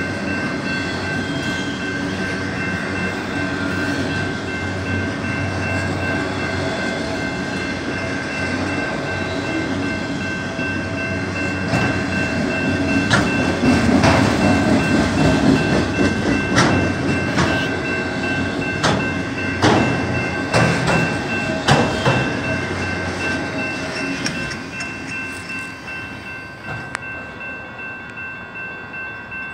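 BNSF freight train of autorack cars rolling past close by: a steady rumble of wheels on rail under two steady high-pitched ringing tones. Midway it grows loudest, with a string of sharp clanks and clacks. Near the end the sound fades as the train moves away.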